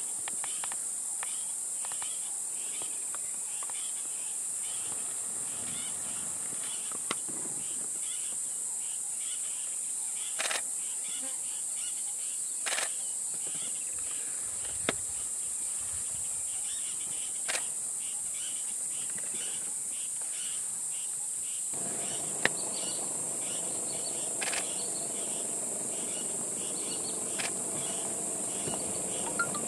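Steady high-pitched drone of insects in the bush, with a lower chirping repeated in quick pulses and a few sharp clicks scattered through.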